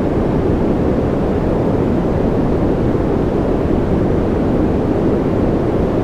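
Steady ambient noise track, an even, deep rushing hiss with no drops, beats or changes.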